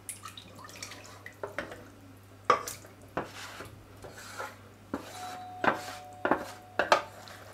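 Wooden spatula scraping and knocking against a metal roasting tray and saucepan as sauce and cooked vegetables are pushed off the tray into the pan. The knocks and scrapes come irregularly, with sharper ones in the second half and a short ringing tone about five seconds in.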